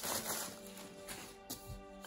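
Background music with steady held notes; near the start a clear plastic bag crinkles briefly as it is handled, and a light knock comes about a second and a half in.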